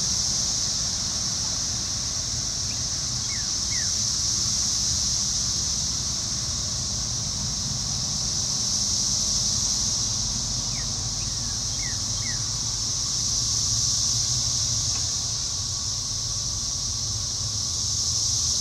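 A steady, high-pitched insect chorus that swells and fades every few seconds, with a few faint, short falling bird chirps over it and a low rumble underneath.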